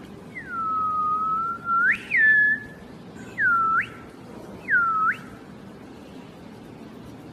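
Whistling: a long high tone that dips, rises sharply and levels off, then two short swooping whistles that dip and rise again.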